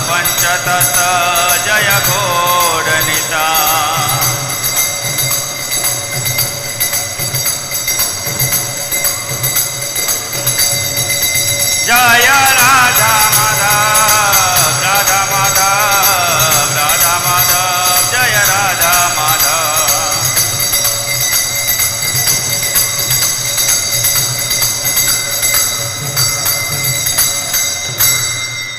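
Temple kirtan during arati: a sung devotional chant in two passages, the first at the start and the second from about twelve to twenty seconds in. Between and under the voices are continuous ringing bells and a steady low drum beat. The music fades right at the end.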